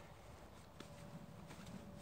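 Faint handling of a folded tent's fabric on grass, with a few soft clicks.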